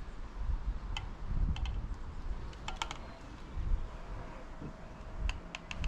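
Scattered light clicks and taps of small bicycle headset parts being handled, a few in quick clusters, including a group near the end.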